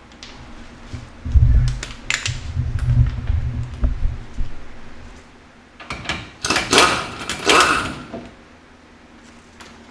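Parts of a truck's rear differential being handled and worked on: a run of low knocks and rumbling for a few seconds, then about two seconds of metal clattering and scraping.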